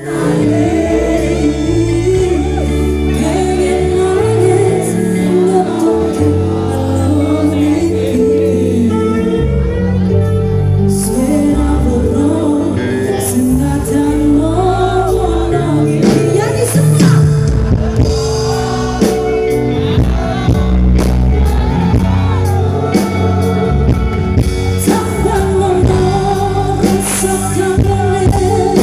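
Music with a singing voice and heavy bass played loud through a loudspeaker sound system, which the uploader calls damaged.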